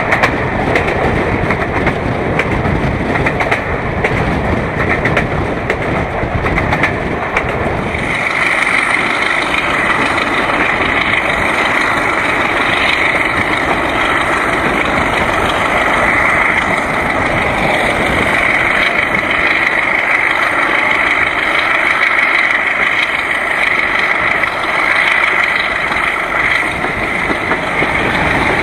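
Diesel locomotive working hard at the head of the train, heard from an open carriage window over the wheels running on the rails. About eight seconds in the heavy low rumble eases and a steady high whine comes to the fore. Near the end the sound swells as the train runs into a tunnel.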